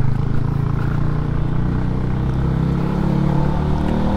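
Scooter engine running steadily under way at low speed, a continuous low drone whose pitch dips slightly in the middle and holds.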